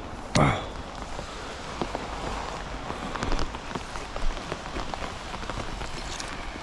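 Heavy rain falling steadily. A brief loud sound comes about half a second in, then scattered light knocks and clinks as a magnet and rusty metal finds are handled.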